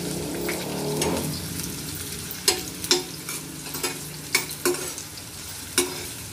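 Sliced onions sizzling steadily in hot oil in a stainless-steel pan as they are fried to a light brown. A metal spatula stirs them and clinks sharply against the pan several times in the second half.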